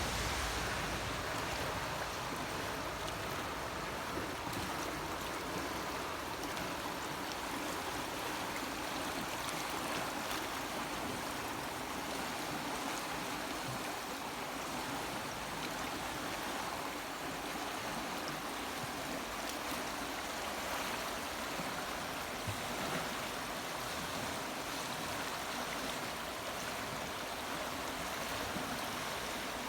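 River water flowing steadily: a continuous, even rushing.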